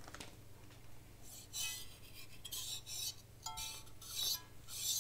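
Soft rubbing and light clinks as the metal body of a cooled astronomy camera is handled and turned over in the hands, in several short bursts, over a faint steady low hum.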